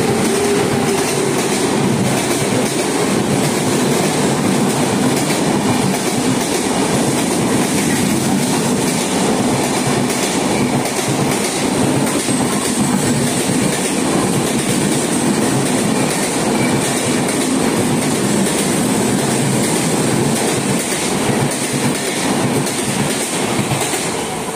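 Humsafar Express passenger coaches behind a WAP-7 electric locomotive rushing past at speed. The wheels clatter over the rail joints in a rapid, steady clickety-clack. The noise starts to fade near the end as the last coach goes by.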